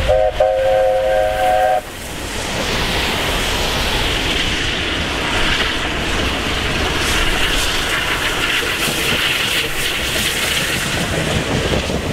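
Class 26 'Red Devil' steam locomotive sounding its multi-note chime whistle, which stops abruptly about two seconds in. It is followed by the locomotive running past with steady steam hiss and the rumble and clatter of its wheels on the rails.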